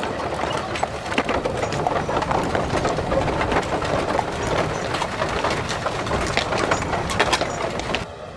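Busy street ambience: a crowd murmuring, with horse hooves clip-clopping and frequent short clattering knocks throughout. It cuts off abruptly near the end.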